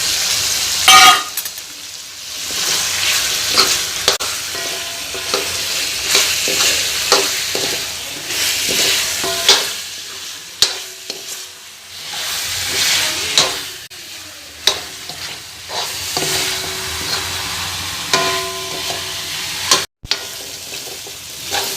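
Chicken masala frying in oil in a metal kadai, sizzling steadily, while a spoon stirs and scrapes against the pan in irregular clicks and scrapes. The sound cuts out for a moment near the end.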